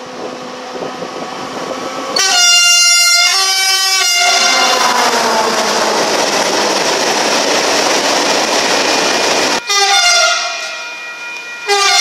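A freight train locomotive's horn sounds two blasts as it approaches, a driver's greeting to the trackside onlooker, then the loud, steady noise of the container freight train passing close by. After a sudden cut, another locomotive's horn gives a short blast, and a second one near the end.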